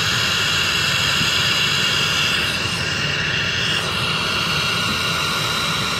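Jet aircraft engines running: a steady rushing hiss with a high whine.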